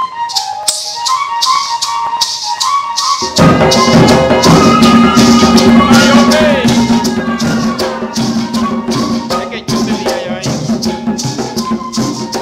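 Colombian gaita ensemble: cactus-stem gaita flutes play a melody over a steady shaken maraca rhythm. About three seconds in, hand drums come in loudly and a boy's voice sings over them.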